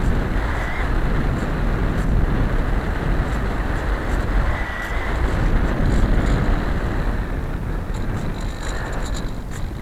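Steady rushing wind and airframe noise picked up by the onboard keychain camera of a Bixler RC glider in flight, heaviest in the low end. Faint clicking comes in near the end.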